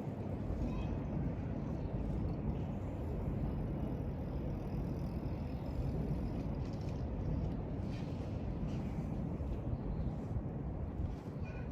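Steady low rumble of outdoor background noise, with a few faint, short high chirps scattered through it.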